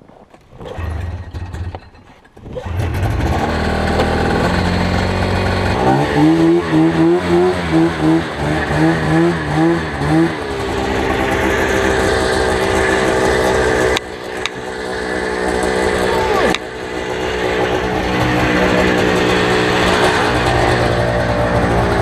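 Arctic Cat snowmobile engine starting up, catching about two and a half seconds in. It is revved in a string of throttle blips, then runs steadily as the sled drives through deep powder, with two brief dips in the sound near the end.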